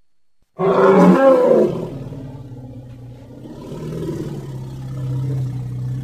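Made-up prehistoric-elephant (Deinotherium) creature call, mixed from animal sound effects. A loud call starts suddenly about half a second in. It then drops to a lower, drawn-out call that swells again near the end.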